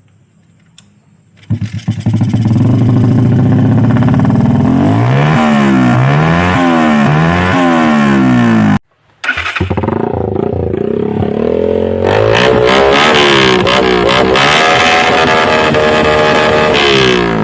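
Suzuki Raider 150 Fi single-cylinder engine breathing through a Daeng Sai 4 aftermarket exhaust: it starts about a second and a half in, idles briefly, then is revved up and down again and again in quick blips. A short break comes near the middle, and the repeated revving carries on after it.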